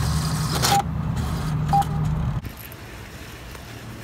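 Two short electronic keypad beeps about a second apart, the button tones of a device being keyed in for a money transfer, over a low steady hum that cuts off about halfway through.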